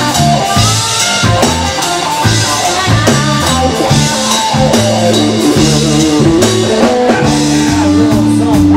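Live country-rock band playing: electric and acoustic guitars, bass guitar and drum kit keeping a steady beat, with one note held from near the end.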